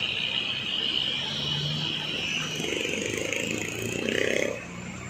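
Heavy truck engines running as trucks move slowly past each other. A steady high-pitched band rides over the engine hum and drops away near the end.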